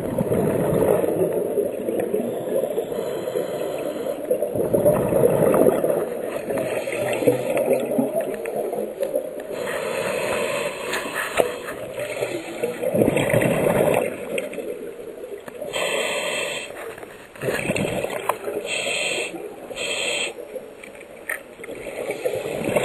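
Scuba regulator breathing underwater: rushes of exhaled bubbles gurgling past the microphone, swelling and fading every few seconds, with a few short higher hisses of inhaled air.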